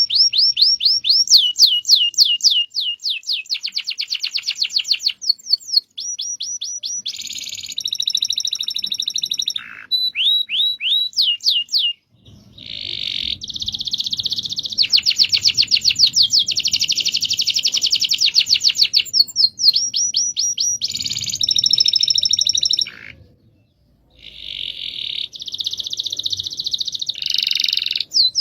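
Domestic canary singing a long rolling song: fast trills of repeated high, falling notes, switching from one trill to the next, with two short pauses.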